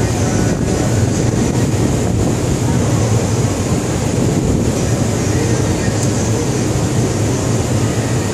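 Steady, loud low hum and rumble of a ship's machinery, unbroken throughout, with an even hiss over it.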